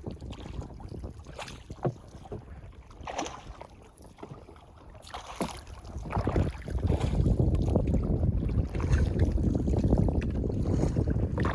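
Wind buffeting the microphone: a low, gusting rumble that swells and drops, loudest in the second half, with a few faint clicks.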